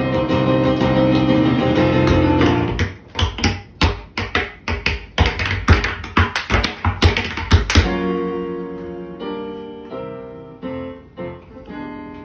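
Live jazz with tap dancing: a full instrumental passage, then about three seconds in the accompaniment thins out and tap shoes strike a run of sharp, rhythmic taps for about five seconds. From about eight seconds the piano plays on alone with a few light taps.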